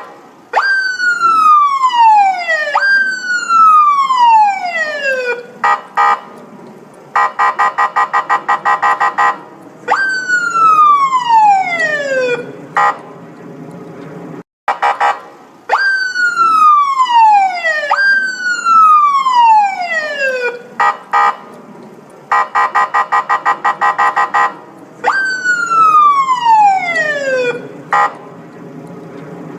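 Police car siren sounding a repeating pattern: long wails that fall in pitch over about two seconds each, mostly in pairs, with short blips between them and two stretches of a fast pulsing tone lasting about two seconds. The sequence repeats about every fifteen seconds.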